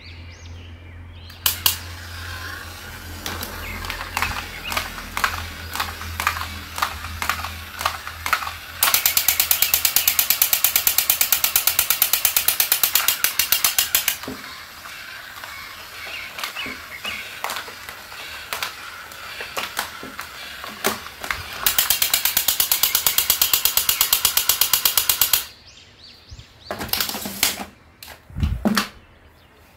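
Battery-operated crawling-soldier toy, a Hulk figure with a rifle, its gear motor clicking steadily as it crawls. Twice it plays a fast, even electronic machine-gun rattle lasting several seconds. A few knocks near the end as it is picked up.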